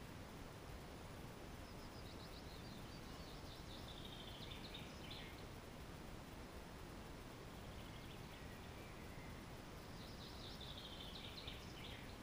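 A songbird singing over a steady low outdoor hiss: two clear phrases and a fainter one between them, each a quick run of notes that drops in pitch at the end.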